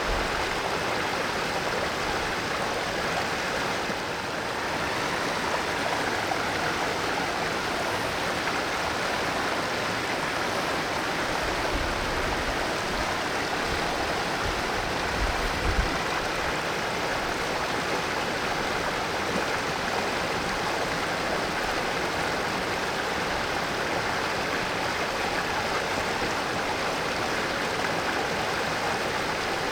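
Mountain valley stream flowing briskly over rocks: a steady, even rush of water.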